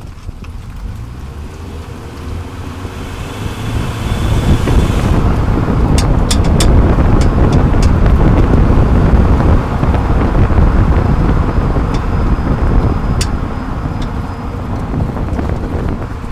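Road and wind noise heard from under a moving 30-series Toyota Prius, with wind buffeting the microphone. The rumble grows much louder about four seconds in, and a few short sharp clicks stand out over it. The car has an unidentified abnormal noise from its left rear.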